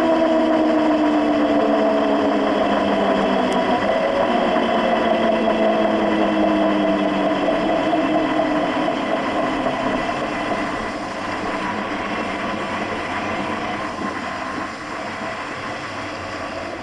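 Rear differential of a Ram 3500 (American Axle 11.5-inch ring and pinion) whining as the truck coasts down off the throttle from about 50 mph, over tyre and road noise. The whine falls in pitch over the first several seconds and fades as the truck slows. It is the sign of loosened pinion preload after a ring-and-pinion change.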